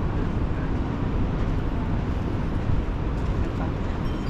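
Steady low rumble of outdoor city background noise, with no distinct single event standing out.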